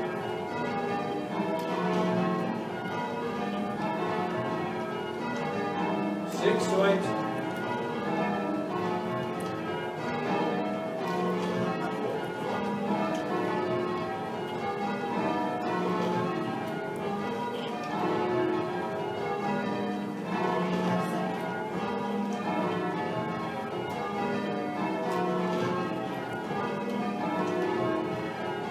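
A ring of church bells rung full circle in call changes: the bells strike one after another in a steady, evenly paced repeating sequence. About six and a half seconds in there is a short louder sound.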